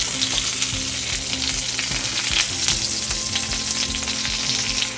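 Breaded chicken breasts shallow-frying in olive oil and butter in a nonstick skillet: a steady sizzle full of fine crackles.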